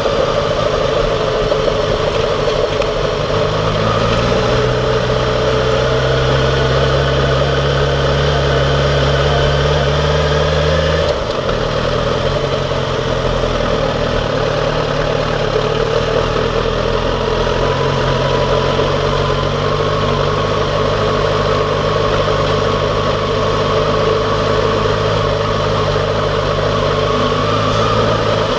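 Yamaha XJ6F's 600cc inline-four motorcycle engine running steadily on the move, its note changing abruptly about eleven seconds in.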